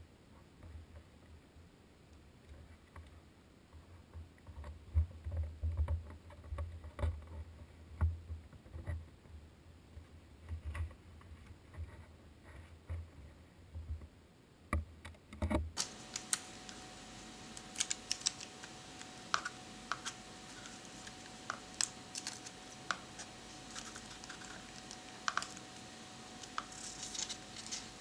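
Hands handling a small notebook and photo prints on a desk: soft taps and thumps on the desk in the first half, then from about halfway, crisp clicks and paper rustles over a faint steady hum.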